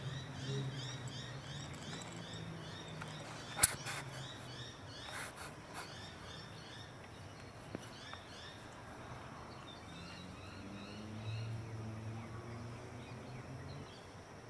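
Outdoor ambience with a small animal's high chirps repeating about three times a second, fading after about six seconds, over a faint low hum. One sharp click about three and a half seconds in.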